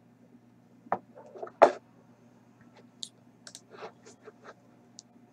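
Scattered clicks from a computer mouse and keyboard: two louder clicks about a second in, then a run of light taps, over a faint steady hum.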